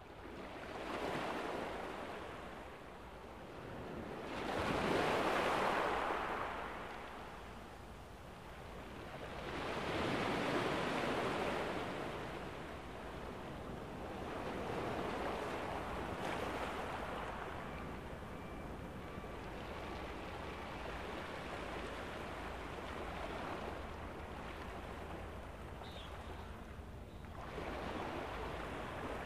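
Ocean surf: waves washing in and out, swelling about every five seconds at first, then settling into a steadier wash.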